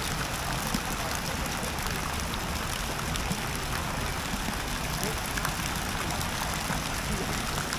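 Steady city street ambience: a low hum and hiss of general outdoor noise, with faint voices now and then.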